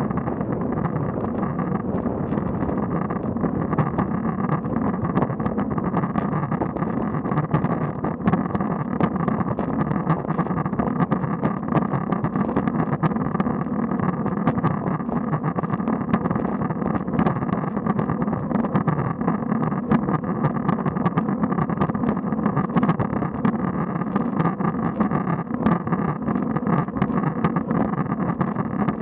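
Steady noise of a road bike climbing, picked up by a bike-mounted action camera: wind on the microphone and tyres on tarmac, with scattered faint clicks throughout.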